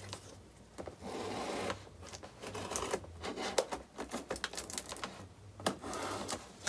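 Packing tape on a cardboard box being slit with a small knife and pulled up: a series of short scratchy rasps and clicks, the longest about a second in.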